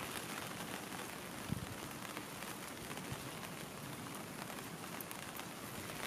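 Steady rain falling, an even hiss, with one soft thump about a second and a half in.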